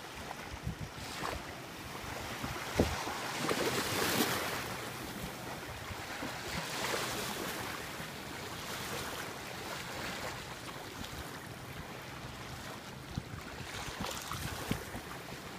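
Small waves washing onto the shore, with gusts of wind buffeting the microphone; the wash swells loudest about four seconds in.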